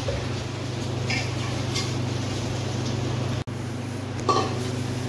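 Metal cookware and lids clinking against each other a few times while being handled, the last clink about four seconds in the loudest, over a steady low hum.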